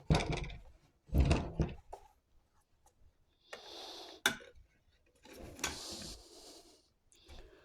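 Hands handling a compact cordless band saw while fitting its blade: a few dull knocks and clunks of the tool's housing, then sliding and rubbing noises broken by a couple of sharp clicks.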